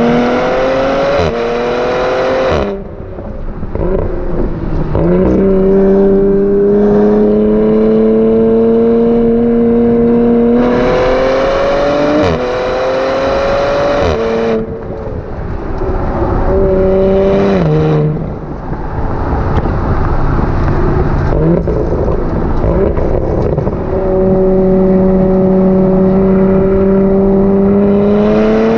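Exhaust of an APR E85-tuned B9 Audi RS4's twin-turbo 2.9-litre V6 through a non-resonated Milltek sports exhaust, heard close to the tailpipe while driving. The note holds steady, then climbs under throttle, and falls away several times as the throttle is released, picking up again each time.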